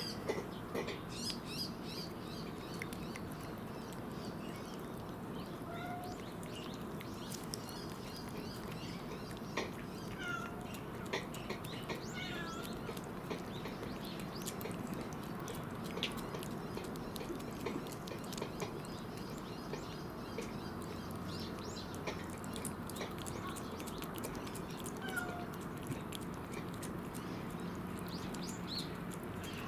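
Cats eating pieces of raw tuna: scattered wet chewing and smacking clicks over a steady background hum, with a few short bird chirps now and then.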